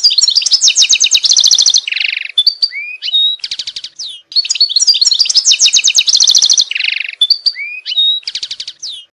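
European goldfinch song, a phrase of rapid twittering trills with a buzzy note and short rising whistles. The identical phrase plays twice in a row, about four seconds apart, as a looped recording.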